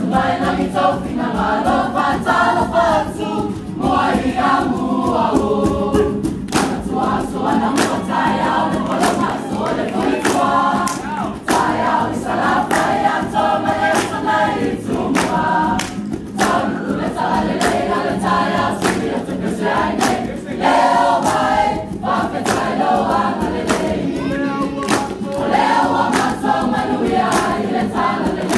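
A Samoan group of men and women singing together in chorus, with many sharp claps.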